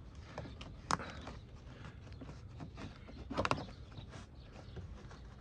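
Light knocks and scuffs of a carpet-covered length of split plastic conduit being pushed into place over a cable: one sharp knock about a second in and a short cluster of knocks a little past three seconds.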